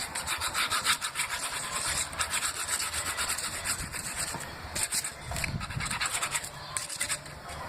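Glue being spread over cardboard: rapid back-and-forth rubbing and scraping strokes on the cardboard surface, with a brief pause just past the middle.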